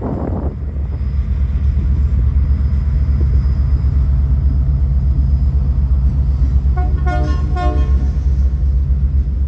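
Departing freight train rolling past with a steady, loud low rumble. About seven seconds in comes a second of short, pulsed horn toots.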